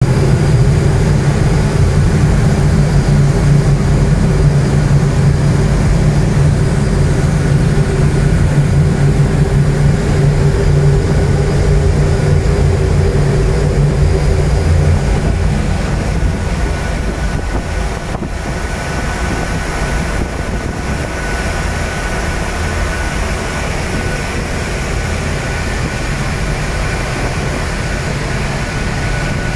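2 MW gas burners firing on large horizontal steel boilers: a loud, steady low roar with a faint steady whine above it, easing a little about halfway through.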